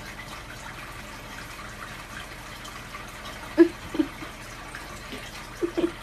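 Steady hiss like running water from a tap, with a few short, louder sounds a little past halfway and again near the end.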